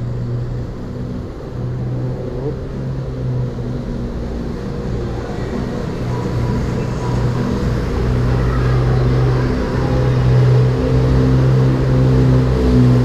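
Steady low engine hum that grows gradually louder.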